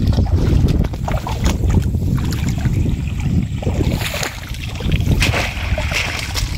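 Water splashing and pouring as a bamboo cage fish trap is pulled up out of shallow floodwater, strongest about four seconds in and again a little after five, over a steady low rumble of wind on the microphone.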